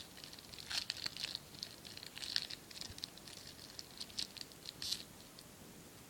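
Foil trading-card booster pack wrapper crinkling in quick, irregular crackles as it is torn open and handled; the crackling stops about five seconds in.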